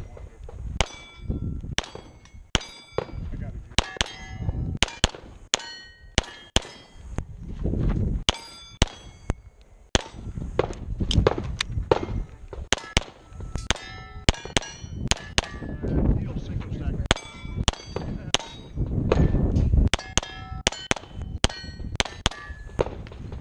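Semi-automatic pistol firing dozens of shots in quick strings at steel plates, the hits answered by a bright ringing clang from the steel.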